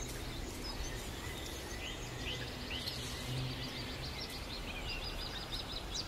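Outdoor forest ambience: small birds chirping briefly and repeatedly over a low, steady rumble.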